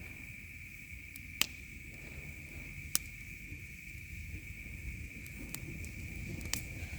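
Campfire crackling, with a few sharp pops, over a steady high drone of crickets or other insects.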